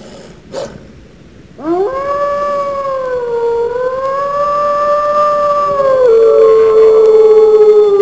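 Wolf howling: after a short pause, one long howl rises quickly about one and a half seconds in, wavers in pitch, then drops to a lower, steady pitch about six seconds in and holds.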